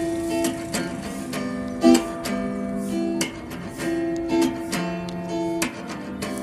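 Background music: guitar chords, plucked and held.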